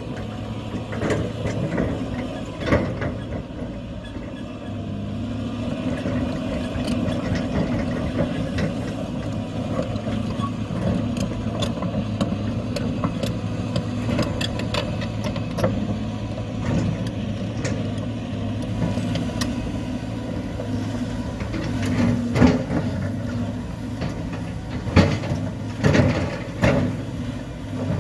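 Diesel engine of heavy earthmoving machinery running steadily, with scattered metallic clanks and knocks, several of them near the end.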